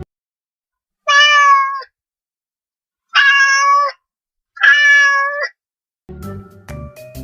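A cat meowing three times, each meow under a second long with a pause between. Music with drums starts near the end.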